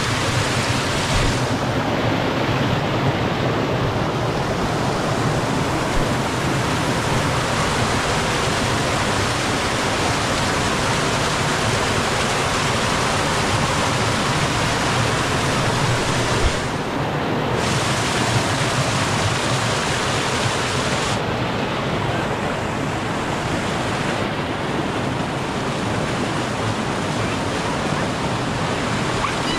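Steady rushing of a waterfall's falling water, close and loud. The upper hiss drops away and returns abruptly a few times.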